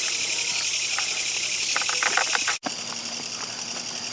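Dense night chorus of singing crickets and other grassland insects, a steady high-pitched shimmer. A few sharp ticks come about halfway through, then the sound drops out for an instant at a cut and resumes slightly quieter.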